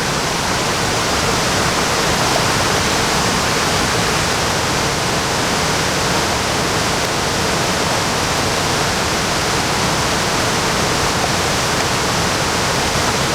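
Waterfall rushing steadily, a constant full roar of falling water.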